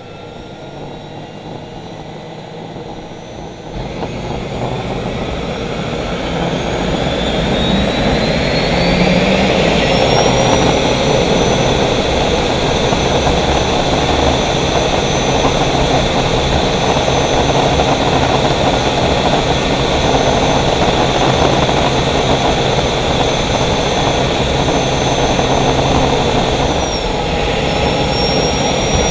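Caterpillar gas turbine in a race boat spooling up: about four seconds in its high whine starts to climb and the engine noise grows much louder over several seconds, then holds steady at a heavy, even rush. Near the end the whine sags briefly and comes back up.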